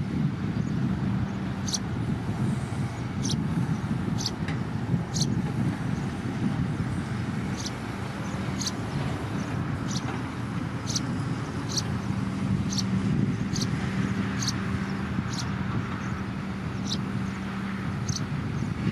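Sumitomo SH210 hydraulic excavator's diesel engine running steadily under working load while it digs and swings a bucket of soil. Short high chirps repeat about once a second over the engine hum.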